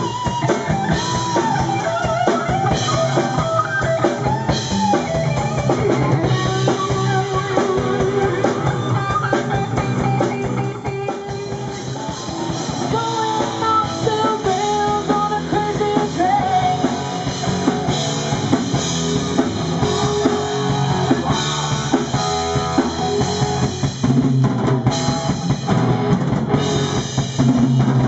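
Live rock band playing: electric guitar with bending lead notes over a drum kit and bass, with a short dip in loudness about eleven seconds in.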